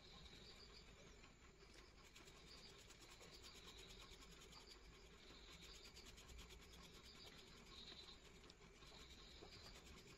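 Faint scratching of a colored pencil shading back and forth on paper, with faint short chirps recurring every second or two in the background.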